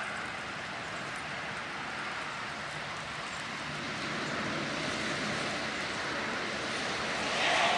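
Hurricane storm wind blowing through trees: a steady rushing noise that swells in a stronger gust near the end.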